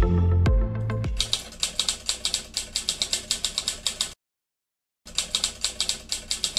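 The end of a piece of background music, then a typewriter sound effect: rapid key clicks at about eight a second that stop for about a second and start again near the end.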